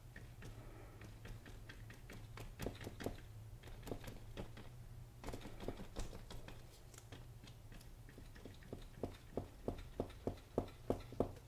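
Paintbrush dabbing acrylic paint onto a canvas: a series of soft taps, scattered at first, then coming quicker and more evenly, about three a second, near the end.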